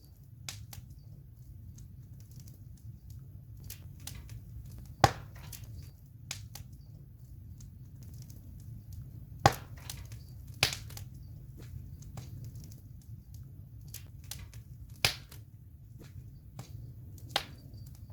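Wood campfire burning: a low steady rush of flame under a scatter of small crackles, with five sharp, louder pops spread through.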